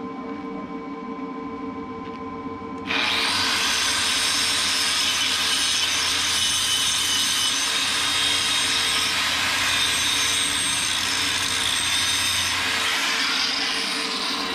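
Angle grinder grinding on steel: it bites in suddenly about three seconds in, runs steadily for about ten seconds, then winds down near the end.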